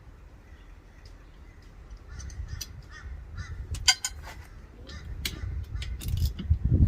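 Socket wrench working the caliper bolts on a Toyota Tarago's front brake: sharp metal clicks and knocks over handling rumble that grows loud near the end.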